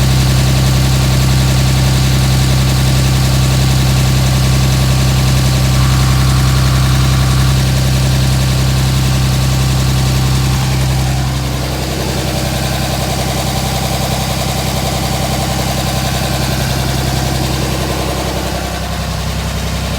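A 5.9 L Cummins inline-six turbo-diesel in a 2007 Dodge Ram idling steadily, a rough idle that the owner suspects comes with excessive blow-by. About halfway through the sound becomes a little quieter and its tone changes.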